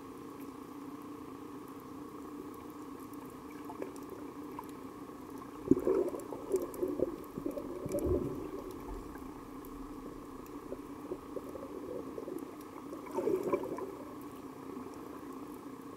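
Underwater recording of a scuba diver's exhaled bubbles gurgling, first about six seconds in for a couple of seconds, then more briefly near the end. Beneath them run a steady hum and faint scattered clicks.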